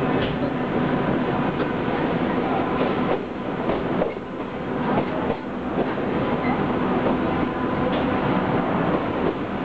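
Passenger train running, heard from inside the carriage: a steady rumble of wheels on the track with irregular clacks as the wheels pass over rail joints.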